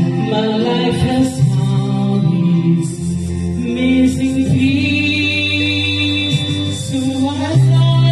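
A woman singing into a microphone through a small speaker, holding long notes over backing music.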